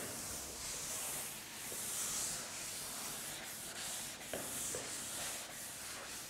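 Rubbing strokes on a classroom board that swell and fade about once a second, with a couple of light taps.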